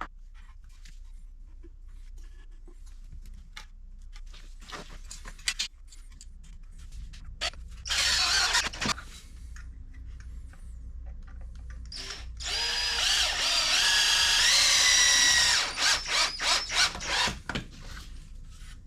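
Power drill boring pocket holes through a Kreg jig: a one-second burst, then a run of about three seconds whose motor whine steps up in pitch, then several quick trigger pulses. Light knocks of the wood and jig being handled come before it.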